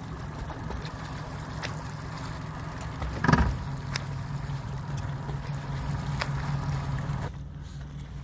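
A boat's motor running steadily at low speed, with a single thump about three seconds in.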